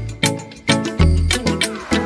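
Upbeat instrumental background music with a steady beat and a bouncing bass line.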